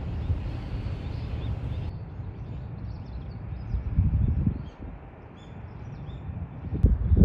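Outdoor ambience: a steady low rumble with louder surges about four seconds in and near the end, and small birds chirping faintly and briefly from about two seconds in.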